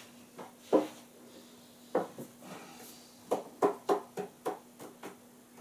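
A series of short knocks and clatters of objects being handled and set down on a wooden table, with a quicker run of light knocks in the second half. A faint steady hum sits underneath.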